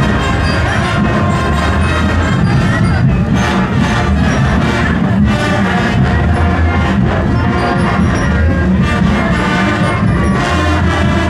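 A marching band plays loud, continuous music with brass and drums.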